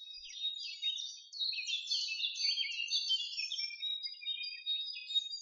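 Several small birds chirping and twittering at once, a dense run of quick, high chirps that starts suddenly and stops near the end.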